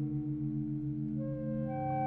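Ambient film score under end credits: held, layered tones over a low tone that pulses several times a second, with higher notes coming in about halfway through.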